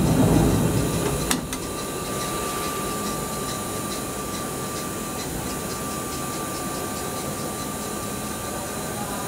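The sliding enclosure door of a Hurco VM1 CNC vertical machining center rolls open and stops with a sharp click a little over a second in. A steady machine hum with a thin high whine follows.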